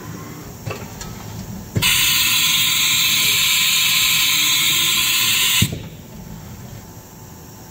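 Haas TM2 mill releasing compressed air: a loud hiss of about four seconds, typical of the spindle's air blast during a tool release. The air cuts in with a sharp click about two seconds in and cuts off with another click.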